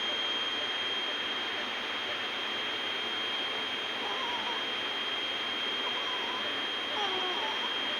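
A steady hiss with a constant high-pitched tone running through it. From about four seconds in, faint short wavering voice-like sounds are heard behind it.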